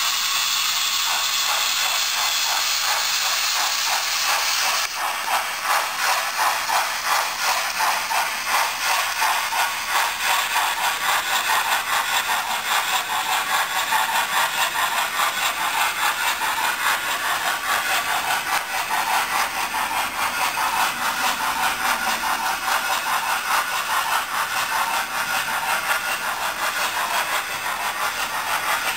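Hornby R2894XS Duchess OO-gauge model steam locomotive's DCC sound decoder playing steam sounds: a steady hiss for about the first five seconds, which cuts off, then a continuous run of even, rapid exhaust chuffs as the locomotive runs.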